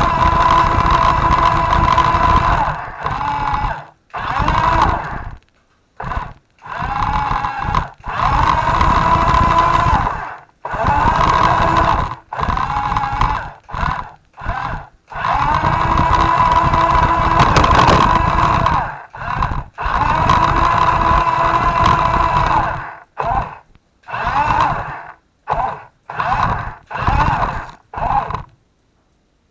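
Toy RC truck's electric motor and gears whining in stop-start bursts as the throttle is worked, with short silent gaps between runs. Near the end the bursts turn short and quick, about one a second.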